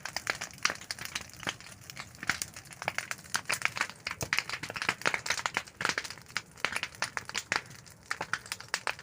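Dry slashed vegetation of a jhum field burning, with a dense, irregular crackling and popping.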